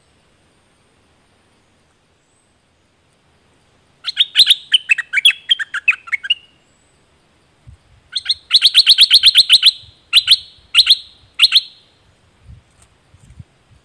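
Caged stripe-throated bulbul singing. About four seconds in it gives a quick warbling phrase of varied notes. After a short pause it gives a fast run of repeated sharp notes, then three separate notes.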